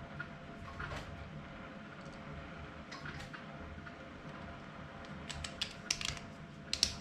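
3D-printed plastic cryptex parts clicking and tapping as they are handled and fitted together: a few faint clicks, then a quick run of sharp clicks in the last two seconds, the loudest near the end.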